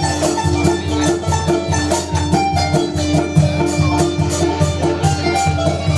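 Live traditional Syrian ensemble music led by a qanun plucked in quick runs with finger picks, over a steady low rhythmic accompaniment.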